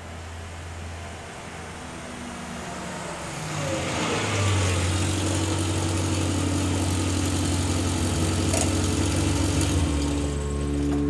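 Small vintage car's engine running as the car draws up, growing louder about four seconds in, then idling steadily. A single sharp click about eight and a half seconds in.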